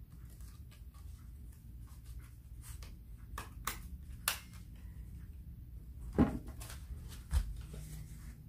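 Paper strips being handled, with three sharp clicks near the middle from a desk stapler being squeezed shut on the paper, and a couple of duller knocks later.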